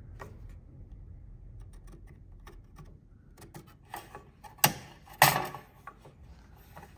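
Light scattered clicks of tools and wood being handled on a workbench, with two sharp knocks close together a little over halfway through.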